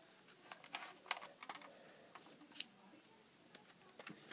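Faint, irregular light clicks and rustling from a plastic toy foam-dart blaster being handled and moved.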